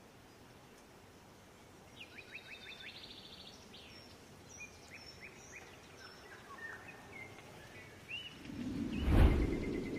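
Small birds chirping and trilling in short phrases of quick repeated notes. Near the end a low rushing whoosh swells up and peaks, louder than the birds.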